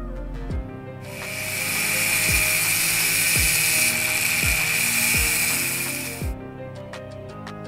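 Small handheld rotary tool with a cutting disc running against a thin steel axle pin for about five seconds, a steady high whine and hiss that starts about a second in and stops near the end.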